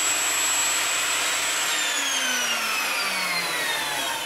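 Electric motor of a workshop machine running at speed, then switched off about a second and a half in and winding down, its whine falling steadily in pitch.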